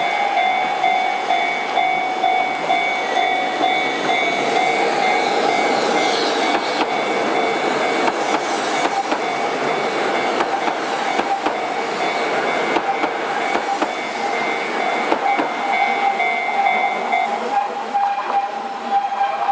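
Keihan 800 series electric train passing over a level crossing, wheels clacking over the rail joints, while the crossing's warning bells ring steadily in a quick regular beat. The higher bell tones stop about 17 seconds in.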